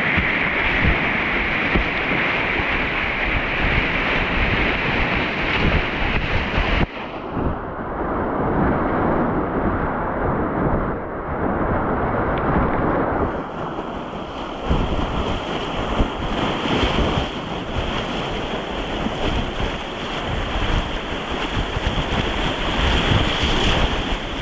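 Rushing whitewater of river rapids around a kayak, with wind buffeting the microphone. The sound changes abruptly about seven seconds in, turning duller, and brightens again about thirteen seconds in.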